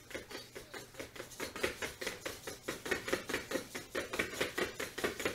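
XGO Lite quadruped robot dog stepping on a hardwood floor: its feet and legs make a rapid, even patter of ticks, several steps a second.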